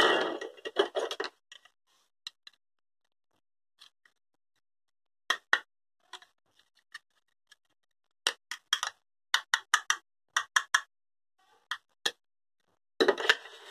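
Plastic toy pumpkin pieces being handled: a rasping tear of the Velcro joint in the first second and again near the end, with scattered light plastic clicks and taps in between.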